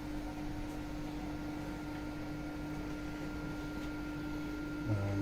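Steady electric motor hum holding one constant tone over an even background noise.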